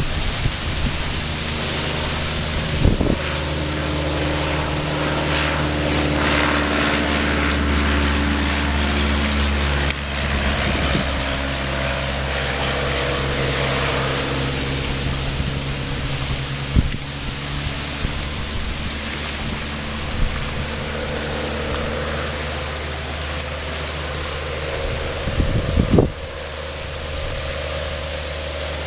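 Piper J-3 Cub seaplane's engine droning steadily during a fly-by, with wind rushing over the microphone and a few brief bumps.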